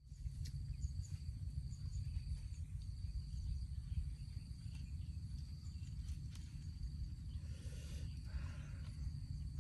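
Rural outdoor ambience: a steady high-pitched insect drone over a low rumble, with a brief rustle near the end.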